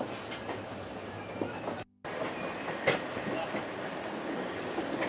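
Passenger train running along the rail track, heard from on board: a steady rumble of wheels on rails with scattered clicks and a sharp clack about three seconds in. The sound drops out for a moment just before two seconds in.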